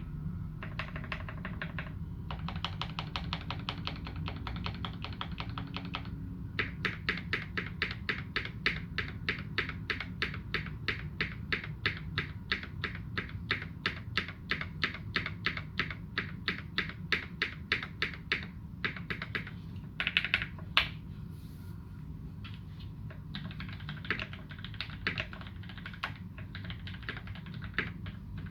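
Continuous fast typing on a custom mechanical keyboard with lubed and modded Gateron Ink Black v2 linear switches under GMK Dolch keycaps, with a few louder key strikes about twenty seconds in. A steady low hum runs underneath.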